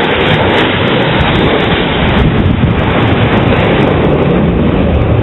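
Blue Angels F/A-18 Hornet jets flying overhead in close formation, a loud, steady jet roar whose deep rumble builds in the second half.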